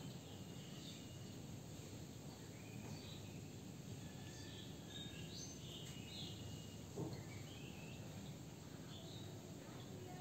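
Faint outdoor ambience: a steady low background noise with scattered short, high chirps from small animals, and a single soft knock about seven seconds in.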